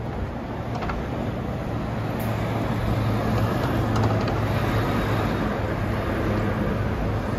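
City street traffic: motor vehicles, among them a box truck and a van, driving past close by with their engines running, the sound growing a little louder a couple of seconds in as they pass.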